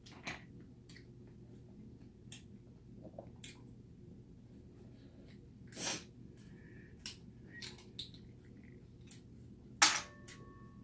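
Boiled cockle shells clicking as they are picked from the plate and prised apart by hand, with a louder clack and a brief ringing tone near the end.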